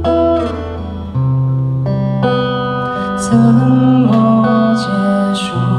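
Live song: an acoustic guitar played fingerstyle, accompanying a man singing into a microphone.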